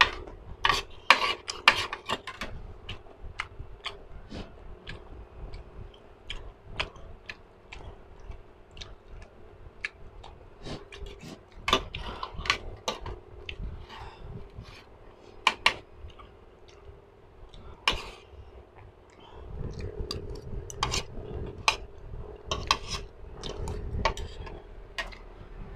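Mukbang eating sounds on a clip-on microphone: frequent sharp clicks and clinks of cutlery and dishes as food is handled, with chewing, over a faint steady hum. About three-quarters of the way through, a louder stretch of close, low handling noise comes in.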